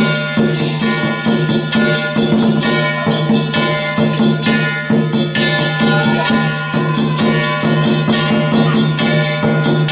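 Music with a fast, even percussion beat of struck and shaken instruments over sustained steady tones, with no break.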